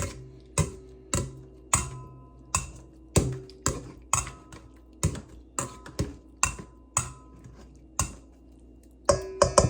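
Potato masher pressing down through marionberries and knocking against the bottom of the measuring container, a run of sharp knocks about two a second, some with a brief faint ring.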